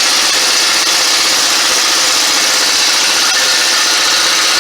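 Impact wrench hammering steadily on the 32 mm nut of a wheel bearing press tool's pulling screw. The rapid blows are meant to shock a stuck front wheel bearing loose in its hub housing.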